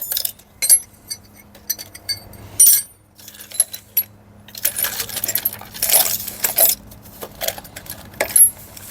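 Loose steel bolts and small metal parts clinking and rattling as they are picked through and handled by hand, in irregular bursts that are busiest in the middle.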